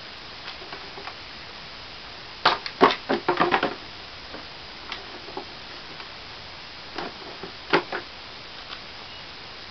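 Plastic-and-metal clicks and clunks as the grass catcher bag is hooked onto the rear of a Toro Recycler walk-behind mower, in a quick cluster about two and a half seconds in. A few more knocks follow near eight seconds as the mower is handled, over a steady background hiss.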